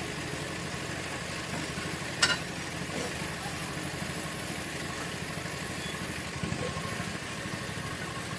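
A steady engine-like running hum with a fine low pulsing, and one sharp metal clink about two seconds in, from the steel bar on the turnbuckle being worked under the chassis.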